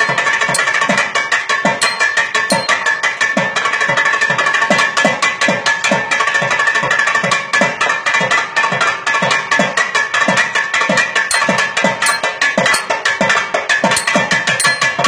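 Thavil drum solo (thani avarthanam): a fast, dense rhythm of sharp strokes, with regular deep strokes whose pitch drops, over a steady drone.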